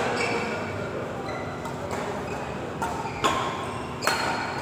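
Badminton rally: a shuttlecock hit back and forth, several sharp cracks from the racket strings, the two loudest about three and four seconds in, with a brief high ping after the strike.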